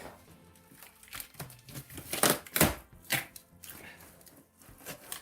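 Cardboard shipping box being pulled open by hand: flaps and packing crinkling and tearing in irregular strokes, loudest in the middle.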